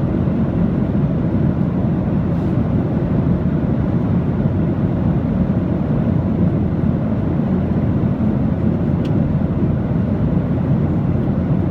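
Aircraft noise: a steady, even low rumble of engines and rushing air, with no change in pitch or level.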